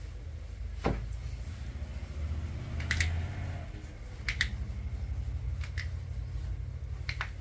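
Joints of the foot cracking under a chiropractic adjustment: about five sharp pops a second or more apart, several of them quick doubles, over a low steady hum.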